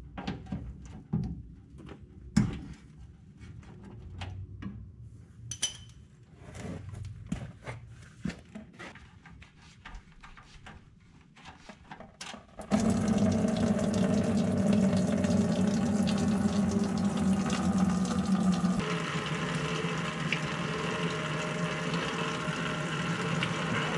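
Ratchet clicking and metal knocks as the fuel tank drain plug is worked loose, then, about halfway in, gasoline suddenly gushes from the drain hole into a plastic bucket, a loud, steady pour with the steady hum of a small electric fuel transfer pump.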